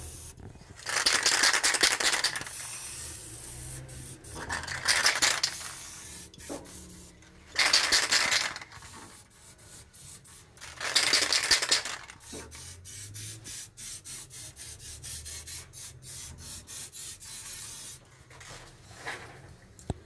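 Aerosol spray-paint can spraying paint onto a microwave oven's metal cavity floor: four hissing bursts of about a second each in the first twelve seconds, with quieter clicking and rattling in between and after.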